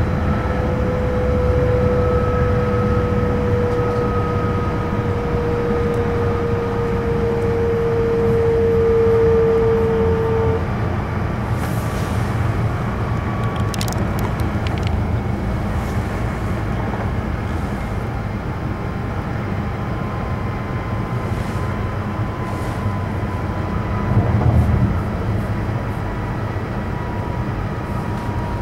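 Cabin running noise of an E5 series Shinkansen: a steady low rumble with a motor whine that slowly falls in pitch and fades out about ten seconds in, as the train slows for a station stop. A few faint ticks come a little past the midpoint, and there is a brief louder rumble near the end.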